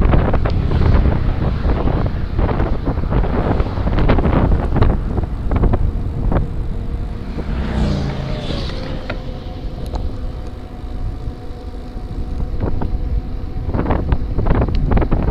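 Wind buffeting the microphone of a camera riding on a gravel bike, with the bike rattling and knocking over a rough trail. About halfway through a falling tone and then a faint steady whine come in, while the rattling eases for a few seconds before picking up again near the end.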